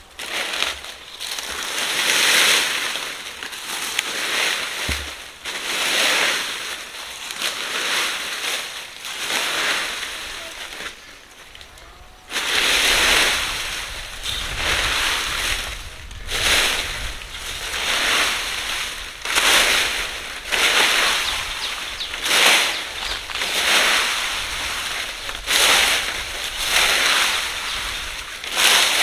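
A fan-shaped leaf rake sweeping through a thick layer of dry fallen teak leaves, stroke after stroke, each pull a loud rustle, about one every one and a half to two seconds, with a short break about eleven seconds in.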